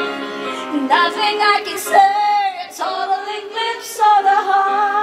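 Women singing karaoke into handheld karaoke microphones over a music backing track, holding long notes with a wavering vibrato.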